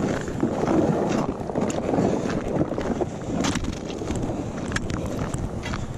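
Footsteps crunching over snow-crusted ice, with scattered sharp taps of a steel ice spud bar against the ice, and wind on the microphone.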